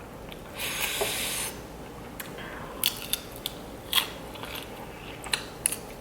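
Close-miked eating: a hissing, crunchy stretch early on, then a handful of sharp crisp clicks from chewing and biting.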